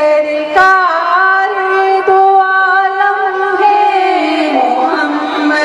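Women's voices singing a naat, drawing out long held notes; the melody steps up about half a second in and falls to a lower note near the end.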